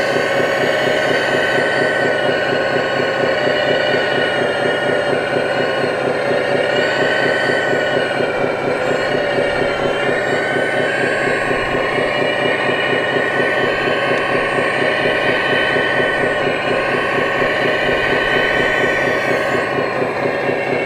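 RC Hitachi Zaxis 330 hydraulic excavator's hydraulic pump whining steadily as the excavator digs and swings, the pitch dipping briefly twice as the load on the hydraulics changes.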